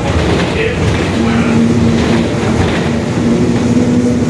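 Mercedes-Benz OF-1721 bus under way: steady diesel and road rumble, with the differential droning, a steady whine that sets in about a second in and holds almost to the end.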